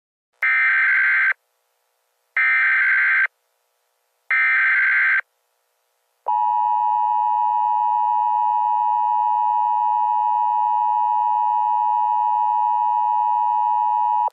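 Emergency Alert System header: three short bursts of warbling SAME digital data tones, each about a second long with a second's gap between them. About six seconds in, the harsh two-tone EAS attention signal starts and holds steady, announcing the alert message that follows.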